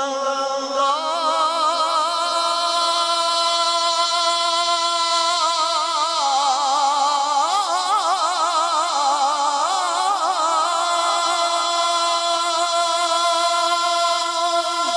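Male qari reciting the Quran in the melodic tajweed style into a microphone, drawing out one long sustained note. Its pitch wavers in quick ornamental trills through the middle before steadying again.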